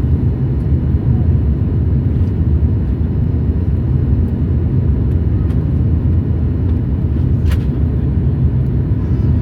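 Steady low rumble of a Boeing 737 MAX 8 in flight, heard inside the cabin: engine and airflow noise. A single short click about seven and a half seconds in.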